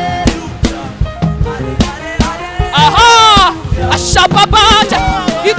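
Live gospel praise music: a church band with drums and sustained keyboard notes, and a singer's wavering held lines about halfway through and again near the end.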